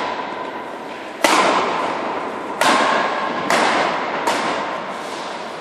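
Badminton rackets striking a shuttlecock during a fast doubles rally: four sharp smacks roughly a second apart, each ringing on in the echo of a large hall.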